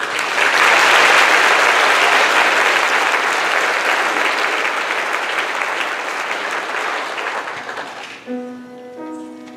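Audience applauding, gradually dying away. About eight seconds in, a grand piano starts playing held notes.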